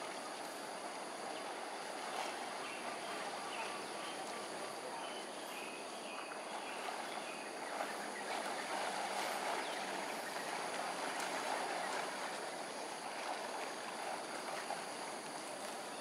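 Steady rush of flowing canal water, a little louder in the middle, with a few faint high chirps a few seconds in.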